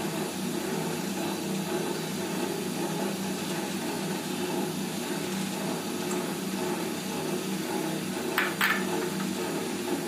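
Steady low mechanical hum of a running machine, with two short sharp clicks about eight and a half seconds in.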